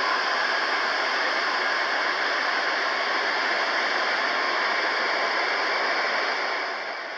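Antonov An-225's six Progress D-18T turbofan engines running at taxi power: a steady jet hiss with a faint whine, easing slightly near the end.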